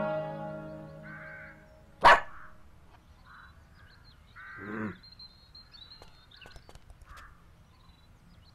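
A dog barks once, short and sharp, about two seconds in, as the last plucked zither-like notes die away. A longer, lower vocal sound follows a little before the halfway point.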